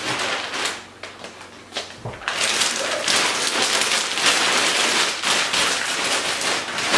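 Clear plastic storage bags crinkling and rustling as pillows packed in them are pulled out and handled, loud and continuous from about two seconds in, with a soft thud just before.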